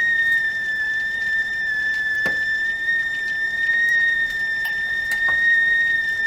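Stovetop teapot whistling at the boil: one steady, high-pitched whistle that wavers slightly in pitch, with a few faint ticks underneath.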